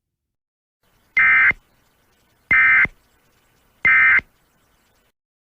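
Emergency Alert System end-of-message signal: three short, identical bursts of electronic SAME data tone, about a second and a third apart. It is the EAS 'NNNN' end-of-message code, which closes the alert.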